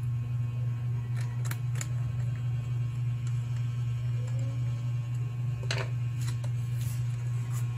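A few sharp plastic clicks as the Acer E5-476G laptop's bottom cover is pressed and snapped into place, over a steady low hum.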